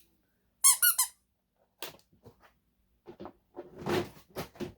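A dog whining behind a closed door: three quick, high, wavering whimpers close together about a second in. Rustling and clattering noises follow, the loudest around the fourth second.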